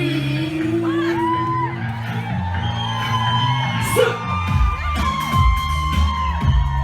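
Live dance-pop concert music over a club sound system, with held synth tones and a bass line, and a kick-drum beat coming in about four and a half seconds in. The crowd whoops and yells over it.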